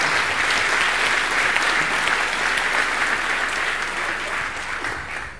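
Audience applauding: dense, steady clapping that fades a little near the end.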